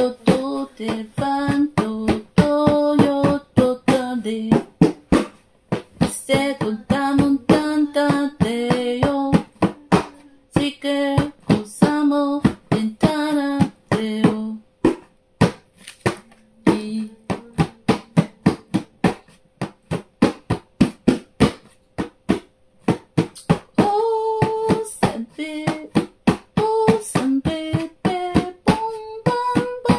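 A voice singing in tongues, a wordless spontaneous spiritual song with a wandering melody, breaking off for a few seconds in the middle. Under it runs a steady, fast beat of sharp taps, about four a second.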